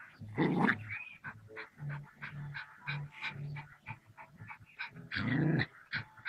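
A dog vocalising in short sounds, with two louder, longer calls about half a second in and again about five seconds in.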